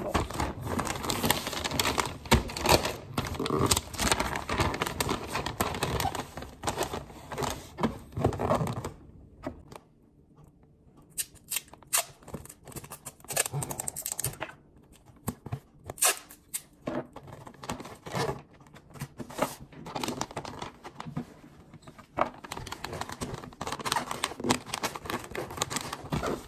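Christmas wrapping paper rustling and crinkling as it is folded and creased around a gift box, with many sharp short crackles and tearing sounds. It goes quiet for a few seconds about a third of the way in, then the crackling starts again.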